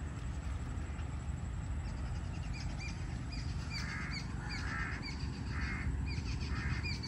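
A crow cawing four times in the second half, while a smaller bird keeps up quick, repeated short chirps from about two seconds in. A steady low rumble runs underneath.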